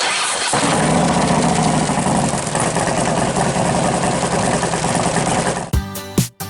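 A steady, engine-like running noise that cuts off suddenly near the end, where music with plucked bass notes and drum beats starts.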